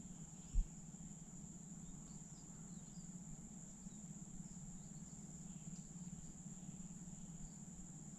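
Faint field ambience: insects trilling steadily at a single high pitch over a low steady hum, with one soft thump about half a second in.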